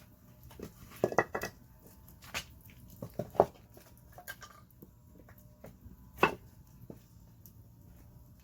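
Campfire in a Coleman Fire Disk fire pit crackling, with a handful of sharp, irregular pops and knocks over a quiet steady background.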